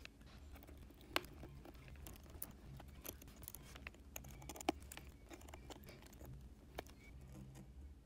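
Faint, scattered small clicks and ticks of steel tweezers against the eDP cable connector and metal frame inside a MacBook Air's display, over a low steady hum; the sharpest click is about a second in, another just before five seconds.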